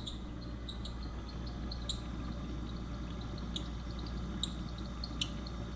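Whirlpool refrigerator's fan motor squeaking: short, high-pitched chirps at an uneven pace over the fridge's steady low hum. The owner traces the squeak to a dry shaft where the fan meets the motor.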